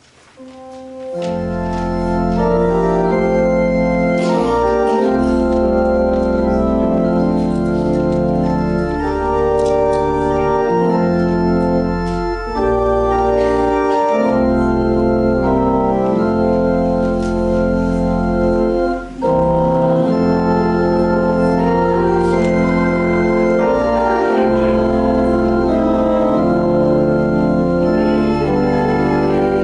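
Organ playing slow, sustained chords over deep bass notes, coming in about a second in and changing chord every second or two.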